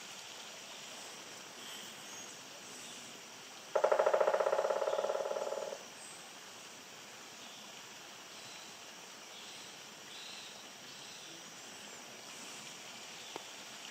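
Woodpecker drumming: one rapid roll of beak strikes on wood, about two seconds long and fading as it goes, over a faint outdoor background.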